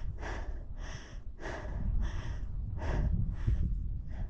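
A person breathing hard and fast from climbing a steep mountain ridge: short, noisy in-and-out breaths about every half second.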